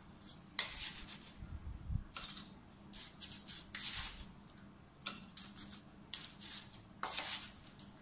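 Kitchen utensils and dishes handled: a series of short scrapes and clinks, about eight in all, spaced irregularly with quiet gaps between.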